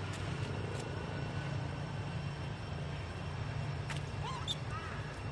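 A steady low engine-like drone, with a few short high chirps about four seconds in.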